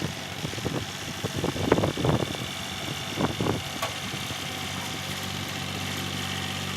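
An engine idling steadily, with a run of irregular knocks in the first four seconds.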